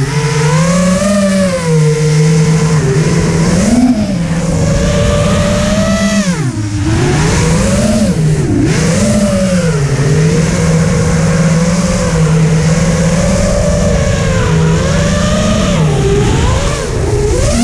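Whine of an FPV quadcopter's brushless motors and propellers, heard from the GoPro riding on the quad. The pitch rises and falls constantly with the throttle, with brief drops about six and a half seconds in and again near the end.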